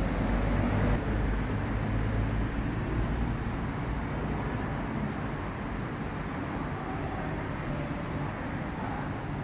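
Steady low background rumble with no distinct events, a little louder in the first few seconds.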